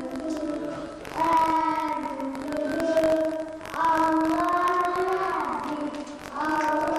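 A child singing long held notes in phrases a few seconds long, a new phrase starting about a second in, another just under four seconds in and a third near the end.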